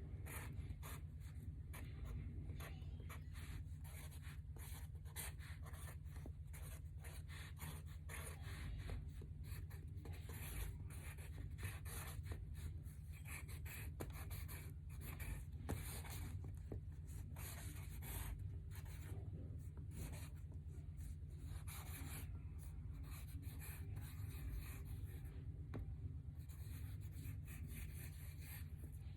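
Sharpie marker tip squeaking and scratching across paper in many short, irregular strokes, over a steady low hum.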